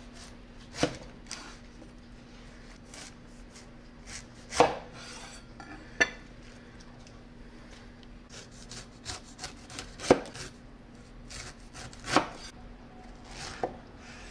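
Cleaver chopping through a pineapple on a wooden cutting board: about six sharp knocks of the blade striking the board, spaced a second or several apart, with quieter scraping and handling between them.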